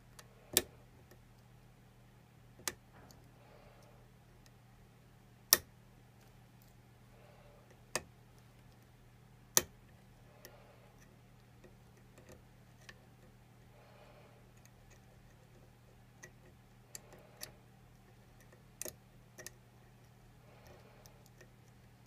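Steel lock pick and tension wrench working the pin stack of a First Watch six-pin padlock: sharp, separate metallic clicks, five louder ones in the first ten seconds, then fainter, closer-spaced clicks near the end. A steady low hum runs underneath.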